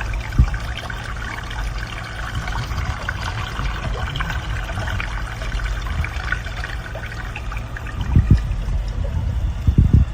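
Water pouring steadily from a bathroom sink faucet's waterfall spout into the basin. A few low thumps come about half a second in and twice near the end.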